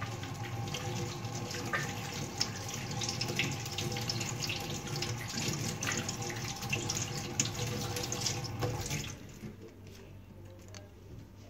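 Kitchen tap running into a stainless steel sink while soapy hands are rinsed under the stream, the water splashing over the hands. The tap is shut off about nine seconds in.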